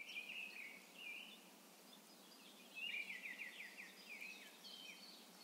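Faint birds chirping, with a quick run of about half a dozen notes near the middle, over a steady outdoor background hiss.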